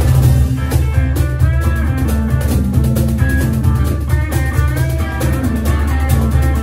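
Live blues band playing an instrumental passage: a hollow-body electric guitar plays a lead line with sliding, bent notes over a steady hand-played cajón beat.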